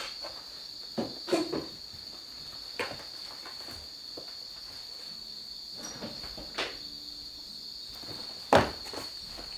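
Two cats play-fighting on a tatami mat: a few short scuffles and soft thumps, the loudest near the end. A steady high-pitched whine runs underneath.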